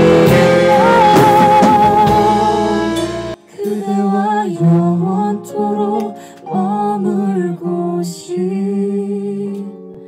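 Live band rehearsal: a full band plays with singing, loud, until it cuts off abruptly about three seconds in. Then a female voice sings a slow melody more quietly, with little behind it.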